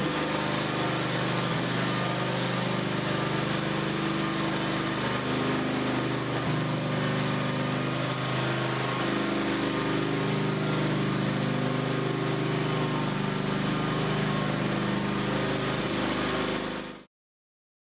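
Propane engine of a WerkMaster Titan XT concrete floor grinder running steadily as it polishes concrete with 800-grit resin pads. The sound fades out near the end.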